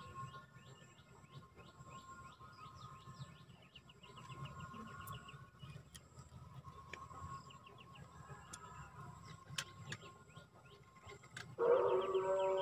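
Birds chirping in quick repeated notes over a faint steady outdoor background. Music starts suddenly near the end and becomes the loudest sound.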